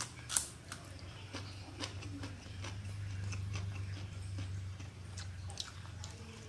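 Close-miked chewing of a mouthful of rice and fish sambal eaten by hand: irregular wet mouth clicks and smacks, over a low steady hum.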